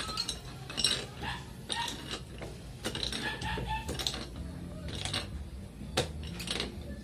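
Brass pipe fitting being screwed onto a steel pipe held in a pipe wrench: irregular metallic clicks and scrapes of threads and wrench jaws, about one or two a second.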